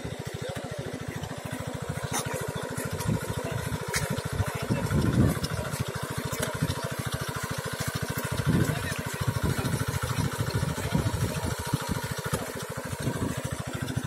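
Small engine of a VST paddy transplanter running steadily with a fast, even firing beat as the machine plants rice seedlings, swelling louder briefly about five and eight seconds in.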